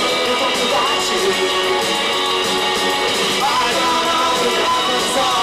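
Live rock band playing a fast song: electric guitars and drums, with a male voice singing.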